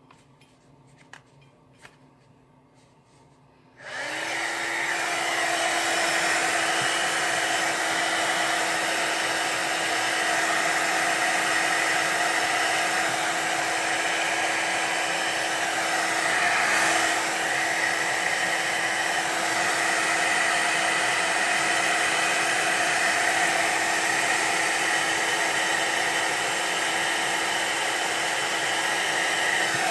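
Craft embossing heat gun switched on about four seconds in, after a few faint clicks, then running steadily: an even rush of blown air with a constant hum, as it melts the embossing powder on the stamped card.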